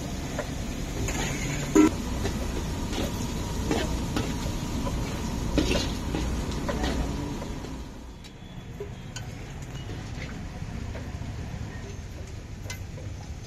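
Metal utensils clinking and scraping against a cooking pan over a steady background din, with one sharp clank about two seconds in; the background drops away a little about eight seconds in.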